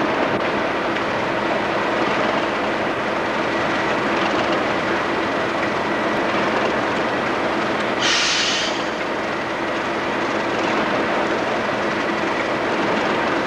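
English Electric Class 37 diesel locomotive standing with its engine idling steadily, a faint high steady tone over the engine note. A short burst of air hiss comes about eight seconds in.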